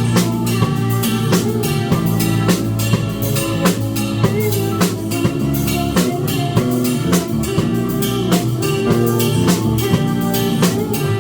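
A live band playing a song, with a drum kit keeping a steady beat of kick, snare and rimshots over sustained bass and guitar.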